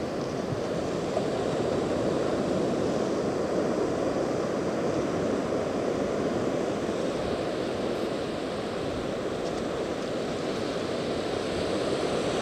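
Ocean surf washing onto a sandy beach: a steady, continuous rushing of breaking waves.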